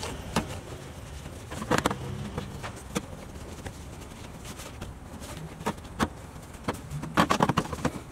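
A cloth rag wiping and scrubbing the grimy plastic top of a car's in-tank fuel pump, with scattered light knocks and clicks of hand and rag against the pump housing, over a low steady hum.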